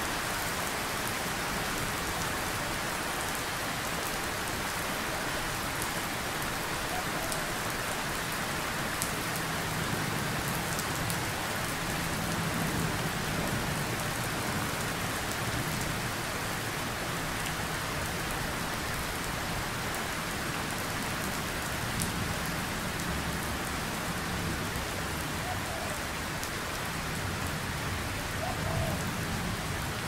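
Steady rain falling, with low, distant thunder rumbling now and then, most clearly a few seconds in and again near the end.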